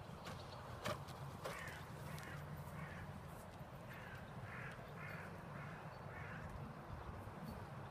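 Harsh bird calls, crow-like caws repeated about twice a second, over a faint steady low rumble, with one sharp click about a second in.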